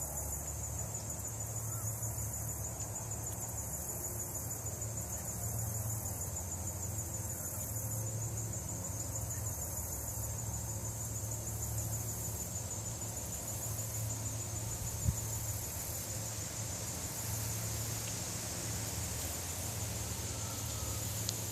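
Crickets chirring in a steady, continuous high trill, over a low steady hum.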